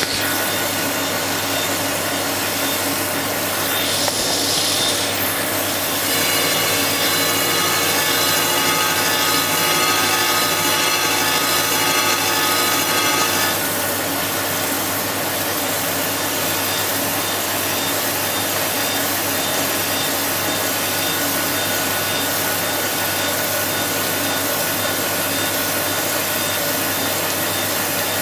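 AMC 1500H crankshaft grinder's wheel grinding a main journal of a 305 Chevrolet crankshaft under coolant, a steady grinding hiss of the finishing cut to final size. A whine of several steady tones rises above it from about six seconds in and stops abruptly about halfway through.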